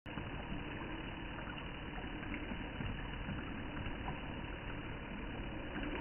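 Small tabletop fountain running: a thin stream of water pouring steadily over the lip of a cup and splashing into a plastic basin below.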